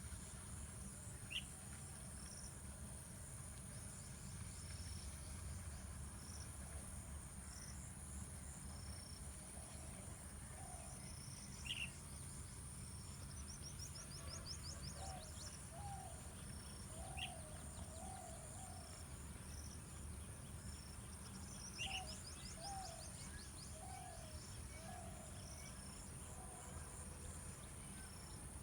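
Several wild birds calling: short high notes repeated about once a second, a few sharp single chirps, and runs of lower repeated calls in the second half. A steady high-pitched buzz, like insects, and a low background rumble run underneath.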